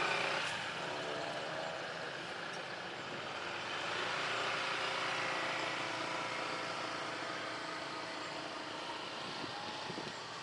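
Steady engine noise with faint steady whining tones, swelling slightly about four to six seconds in.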